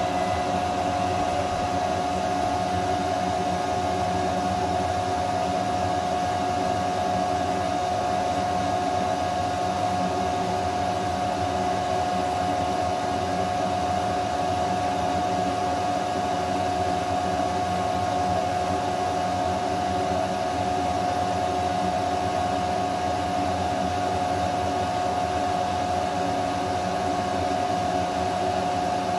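Jiccoda L1 10-watt blue laser engraver at work inside its fume enclosure, its cooling fans and the enclosure's server exhaust fan running together: a steady whir with one high tone held through it.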